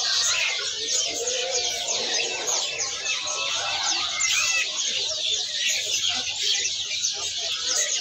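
Many caged songbirds chirping and singing at once: a dense, unbroken chorus of quick, high chirps.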